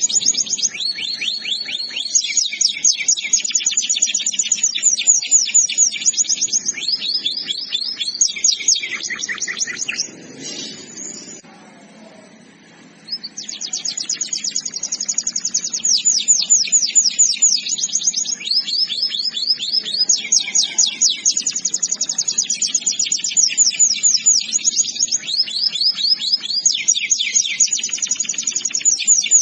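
Domestic canary singing long, rapid trills, switching from one trill type to another every second or two, with a pause of about three seconds about a third of the way in.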